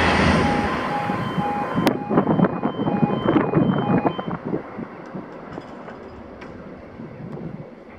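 A CrossCountry Voyager diesel train running away into the distance, its noise fading steadily. For the first four seconds or so, a repeating electronic beep sounds about twice a second over it.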